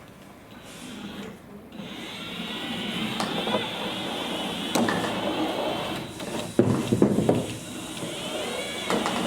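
A small hobby robot's geared drive motors whirring as it moves across the tabletop, with a wavering whine as its speed changes. It knocks several times, most loudly about seven seconds in.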